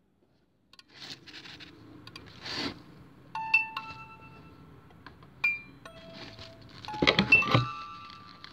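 Sound-art soundtrack. After a second of silence, a low noise bed carries sparse sharp clinks, each leaving a short clear ringing tone, like small bells or struck glass. About seven seconds in, a busy cluster of louder clinks and knocks follows.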